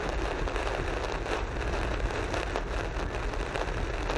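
Heavy rain hitting a moving car and its tyres hissing on a wet road, with a steady low road rumble, heard from inside the car's cabin at about 35 mph.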